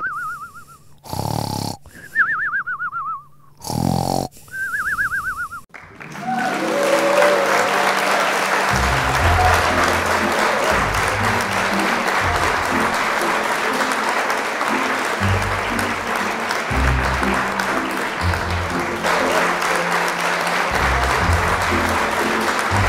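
Cartoon snoring sound effect: rasping snores alternating with a wavering, falling whistle on each breath out, about three times. About six seconds in it gives way to applause over music with a bouncing bass line.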